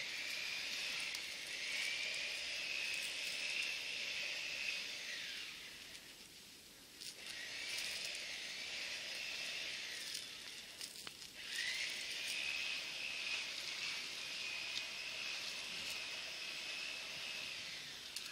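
A high-pitched buzzing drone in three long phrases, separated by short gaps about six and eleven seconds in. Each phrase rises quickly in pitch as it starts, then holds steady.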